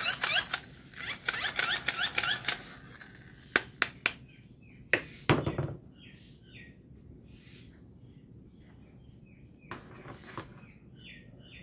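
Plastic Motu Patlu figure toy worked by its trigger grip, giving a fast run of rattling chirps for about two and a half seconds. A few sharp plastic clicks and knocks follow as the toy is set down on the table.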